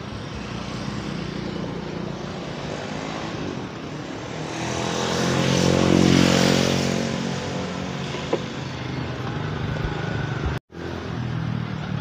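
A motor vehicle's engine running close by, growing louder to a peak about six seconds in as it passes, then easing off. The sound drops out for an instant near the end.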